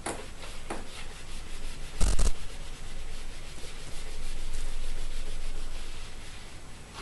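Rubbing and scraping, with a short knock about two seconds in and a longer stretch of steady scraping after the middle.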